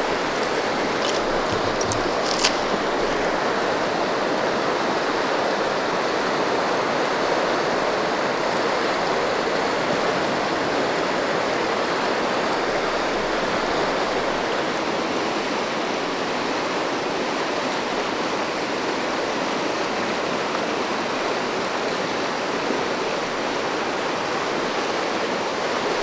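River water rushing steadily through a rocky riffle. The Upper Sacramento is running high and fast after rain.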